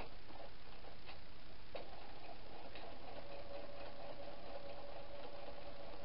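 Electric sewing machine stitching: a few separate ticks, then from about two seconds in the motor runs steadily with a even hum as the needle sews through the layered apron fabric and bias tape.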